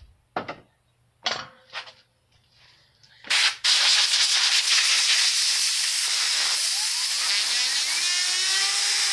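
A few short handling knocks, then about three seconds in a loud, steady hiss of gas jetting begins. In the last two seconds a faint rising whine builds under it as the fidget spinner's bearing spins up.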